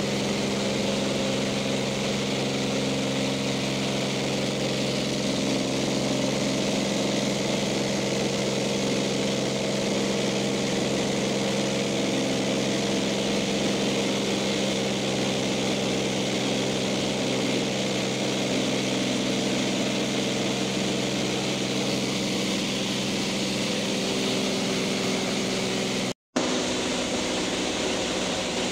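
Small single-engine plane's piston engine and propeller droning steadily, heard from inside the cabin, with a momentary dropout near the end.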